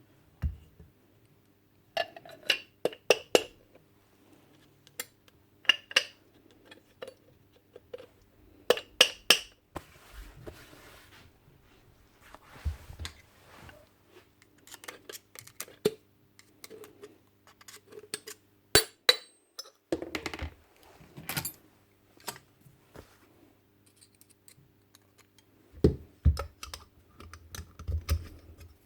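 Irregular clicks, taps and light metallic clinks as small parts of a Paslode IM350+ nail gun are handled and fitted back together, some clicks coming in quick clusters of two or three.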